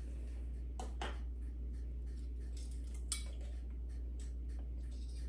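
Small clinks of a metal measuring spoon against a spice jar and a stainless saucepan, with one sharp tap about three seconds in, over a low steady hum.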